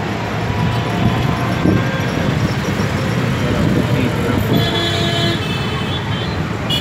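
Busy street traffic heard from a moving rickshaw: a steady engine rumble, with a vehicle horn tooting for about a second a little past the middle.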